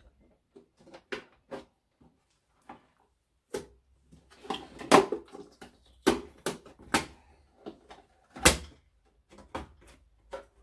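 Irregular clicks, knocks and rattles of the plastic battery case, lid and wiring being handled as the battery management board is worked loose inside a lithium leisure battery; light clicks at first, then several sharper knocks in the second half.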